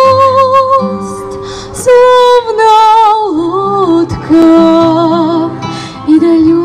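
A woman singing a bard song to acoustic guitar, holding long notes with a slight waver.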